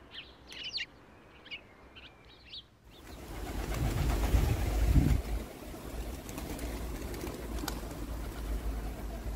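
Faint chirps of small birds for about three seconds. Then a flock of feral pigeons flapping their wings and cooing over a low rumbling noise, which is loudest a second or two after the change.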